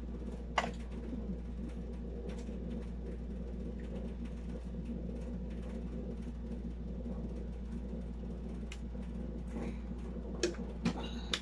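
Steady hum of a room air conditioner, with occasional small clicks from eating and handling food, a few louder ones near the end.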